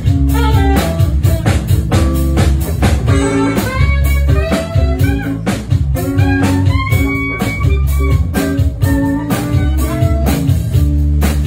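Live band playing: a saxophone carries the melody over a drum kit keeping a steady beat and a heavy bass line.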